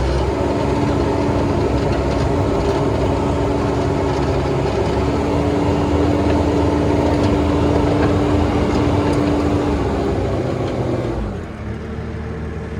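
Bobcat T590 compact track loader's diesel engine running at raised throttle with a steady whine over it, then dropping back toward idle about 11 seconds in.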